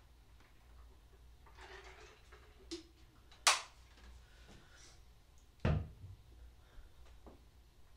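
Handling a water bottle: a faint rustle, then a sharp click about three and a half seconds in as the lid is shut, and a dull thud near six seconds as the bottle is set down on the floor.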